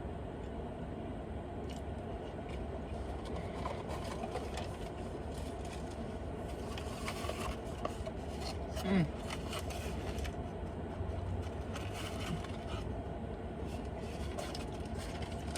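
Faint eating sounds, chewing and handling fried chicken with small scrapes and clicks, over a steady low hum. There is a short hum of the voice about nine seconds in.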